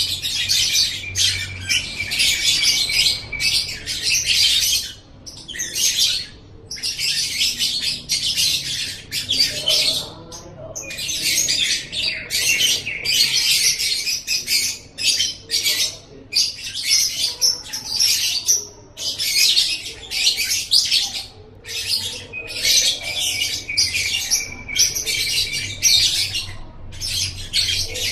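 Lovebird 'ngekek': a long, rapid, high-pitched chattering song, delivered in runs of several seconds broken by short pauses.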